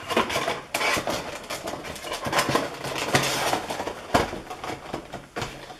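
A stiff clear plastic protector case and a cardboard Funko Pop window box being handled, giving irregular rustling, crinkling and clicking as the box is worked out of the case.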